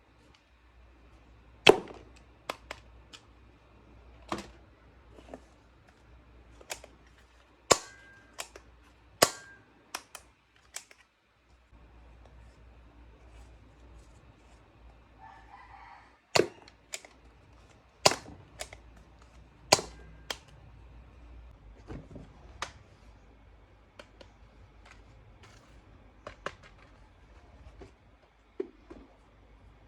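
Sharp, irregularly spaced clicks and knocks of small plastic toys being handled, a dozen or more strong ones, over a faint steady low hum.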